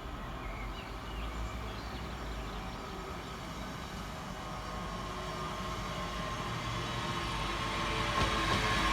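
A Scotrail Class 385 electric multiple unit approaching, its running noise and rumble growing steadily louder. Faint bird chirps are heard near the start.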